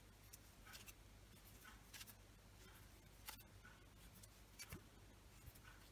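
Near silence with faint, scattered soft ticks and rustles of a crochet hook working yarn into single crochet stitches.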